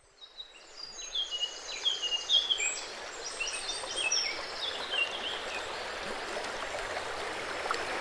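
Forest ambience fading in from silence: several birds calling in quick chirps and short falling whistles, busiest in the first half, over a steady rush of running water.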